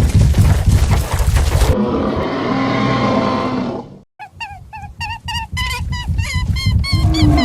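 Sound-effect dinosaur stampede: heavy pounding footfalls and roars, then a growl that cuts off just after four seconds in. After a brief silence comes a fast run of short, high squeaks, the added sound effect for a stampede of white rabbits, growing denser toward the end.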